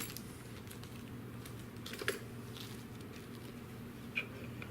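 Scattered small clicks and taps from plastic bird spikes being handled and pushed into the holes of a plastic rain collector cone, with one sharper click about two seconds in and two more near the end, over a low steady hum.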